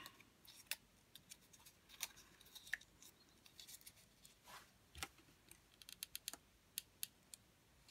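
Faint rustling and crinkling of thin patterned card as a paper cone is bent and pressed into shape by hand, with scattered light clicks. A quick run of sharper clicks comes near the end as a hot glue gun is picked up.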